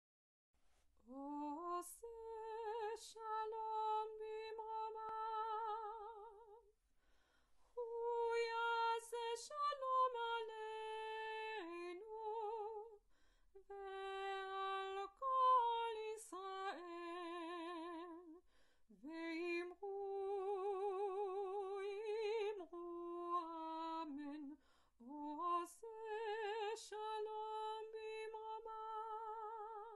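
A trained female voice, a cantor and opera singer, singing a slow melody unaccompanied, with a wide vibrato on long held notes, in several phrases with short pauses between.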